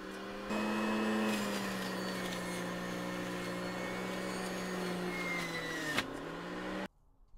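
Hamilton Beach centrifugal juicer's motor running with a steady hum as produce is pressed down the chute, getting louder about half a second in. It stops abruptly near the end.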